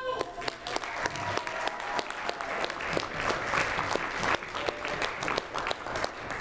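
Audience applauding: many hands clapping steadily at the end of a song, whose last held note stops just at the start.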